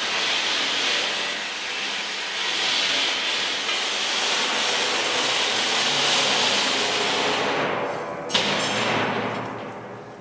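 Loud steady hissing, like air or gas rushing, that fades away over the last couple of seconds, with one sharp click about eight seconds in.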